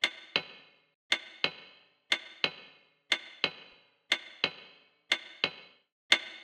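Wall clock ticking: a pair of sharp tick-tock clicks about once a second, each click with a short ringing tail.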